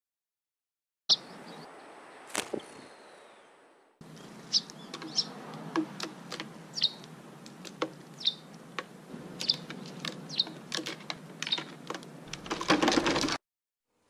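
Eurasian tree sparrows chirping, single short chirps about once a second over a steady hiss, with scattered light clicks and taps. The sound starts about a second in, and a louder noisy rustle comes near the end.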